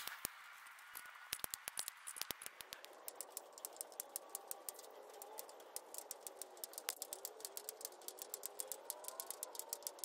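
Wire snips cutting hardware cloth off the roll, strand by strand: a steady run of small, sharp metallic clicks, several a second.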